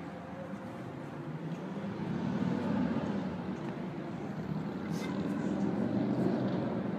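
Road traffic: a motor vehicle's engine rumbles, growing louder about two seconds in and staying steady.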